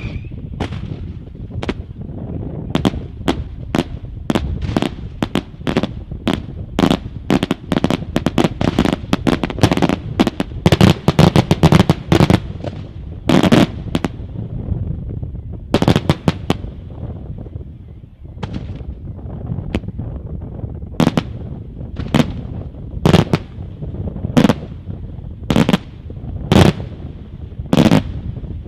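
Fireworks display going off: a dense, rapid crackle of bangs for about the first twelve seconds. Then come louder single bangs spaced about a second or more apart.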